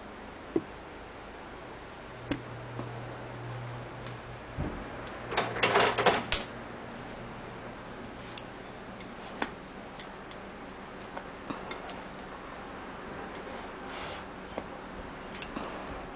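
Scattered light clicks and knocks, with a louder clatter about six seconds in and a low hum for a few seconds around it.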